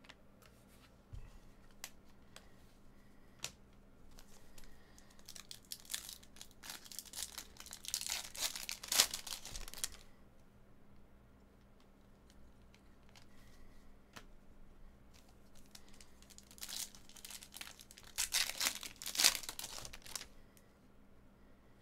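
Chrome trading cards being flipped through by hand, card sliding over card with light clicks, and twice a few seconds of dense crinkly rustling as the stack is shuffled.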